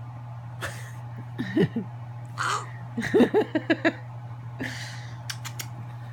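Small dog making short whimpering sounds in a quick run, with sniffs and a few sharp clicks, over a steady low hum.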